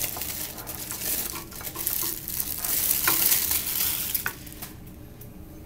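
Plastic wrapping crinkling and crackling as it is pulled off a wax warmer. It dies down near the end.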